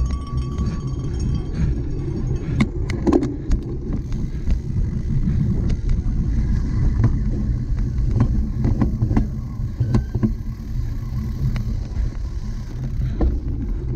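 Cyclocross bike being raced over a rough course: a steady low rumble of wind and tyres on the microphone, with scattered clicks and rattles from the bike.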